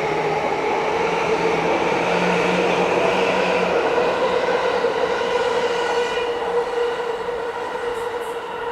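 E235-series electric train pulling out of the platform: the motor inverter whine, a set of steady tones, over the noise of rolling wheels. It grows fainter from about six seconds in as the train moves away.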